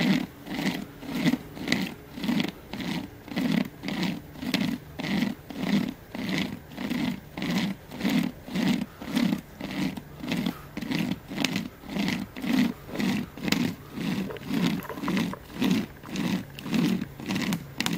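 Pocket chain saw (a saw chain pulled back and forth by cord handles) cutting through a pine trunk, in a steady rhythm of about two rasping strokes a second. The trunk is nearly cut through.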